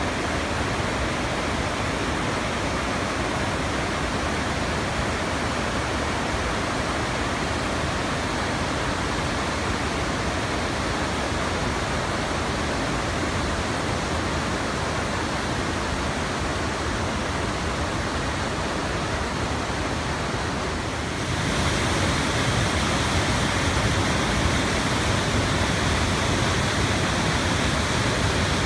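White water rushing over rocks in a mountain river, a steady rush of noise. About two-thirds of the way through it changes to a louder, hissier waterfall.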